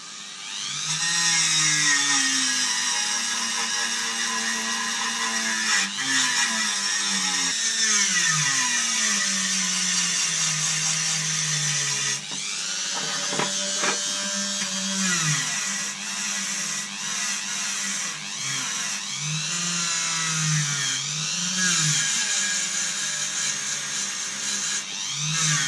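Dremel rotary tool spinning a wire brush against a rusty tin box lid. It comes up to speed about a second in, and its whine keeps dropping in pitch and recovering as the brush is pressed in and eased off, over a scratchy hiss from the bristles.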